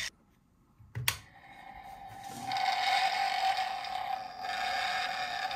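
A click, then a battery-operated toy's small mechanism whirring with one steady whine, building from about a second and a half in.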